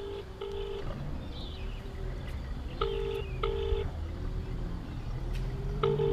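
Smartphone on speaker playing the ringback tone of an outgoing call that is not yet answered: a double ring, two short steady beeps close together, repeated about every three seconds, three times. A steady low rumble runs underneath.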